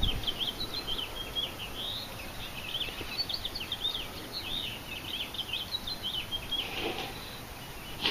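Small birds chirping in a fast, unbroken run of short rising and falling notes, over a steady hiss of background noise.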